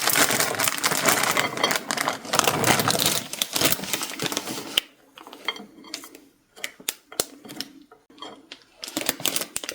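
Rapid clicking and clattering of kitchen utensils and dishes for about five seconds, then a few scattered sharp clicks.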